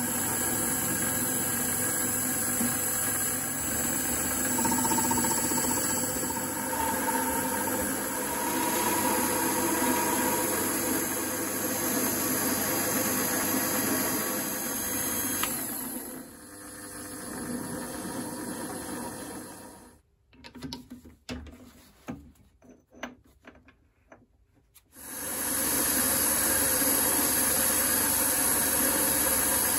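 Mini lathe running with a steady whine of several tones as a carbide-insert tool faces and turns aluminium bar stock. About sixteen seconds in it dies away to near silence broken by a few light clicks, then runs again near the end.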